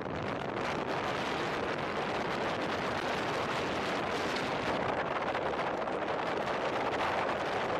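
Steady rushing wind noise over the microphone of a camera mounted outside on a moving car's bonnet, blended with the car's road and tyre noise at speed.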